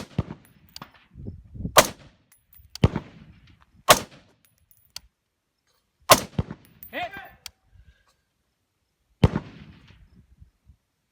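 A string of rifle shots, about six sharp cracks at uneven gaps of one to three seconds, each with a short echo tail.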